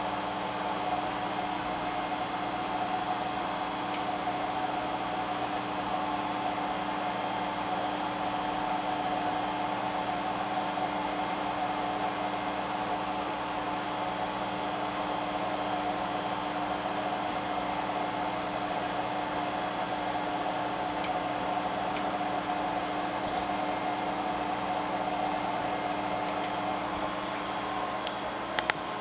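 Geeetech wooden Prusa i3 3D printer running as it prints: a steady whirring hum of its motors and fans. A couple of sharp clicks come right at the end.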